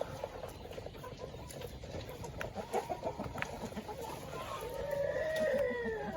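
Chickens clucking, with one long drawn-out call near the end that rises and then falls in pitch.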